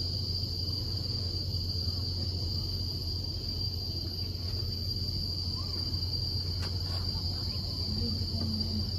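Insects droning steadily at a high pitch, heard from inside a moving cable car cabin over a low steady rumble.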